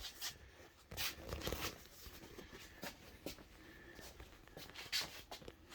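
Faint handling noise: a few soft knocks and clicks with light rustling between them, with the louder knocks about a second in and about five seconds in.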